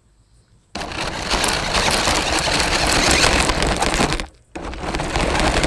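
Remote-control buggy driving over rocky ground, recorded from a phone strapped onto it: a loud, rough rush of tyre and chassis noise that starts about a second in, breaks off briefly near four seconds, then starts again.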